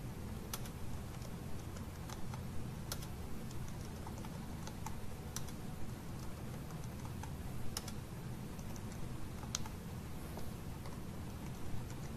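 Typing on a computer keyboard: scattered, irregular keystrokes over a steady low hum.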